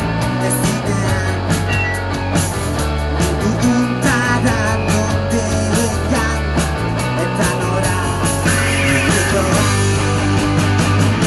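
Rock band playing: electric guitars over bass guitar and a drum kit keeping a steady beat.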